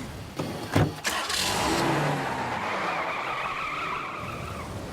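A sharp knock, then a car speeding away with a high squeal of tyres that dies away after a couple of seconds as the car recedes.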